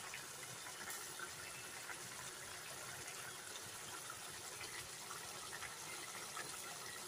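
Egg curry gravy simmering in a steel pot: a faint, steady bubbling with small scattered pops.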